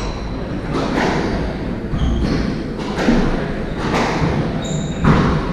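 Squash ball being struck and hitting the court walls in a rally: a sharp smack about once a second, echoing around the court, with a few brief high squeaks.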